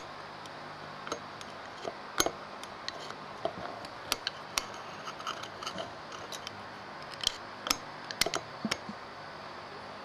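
Irregular light metallic clicks and taps of hand tools and small parts against an Aisan carburetor body during jet replacement, over a steady hiss.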